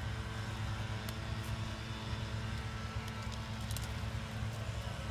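Steady low drone of a running engine or motor, with a few faint light clicks.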